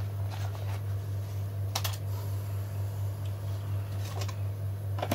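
A few light plastic clicks and taps from a clamp meter and its cardboard box being handled, the sharpest about two seconds in, over a steady low hum.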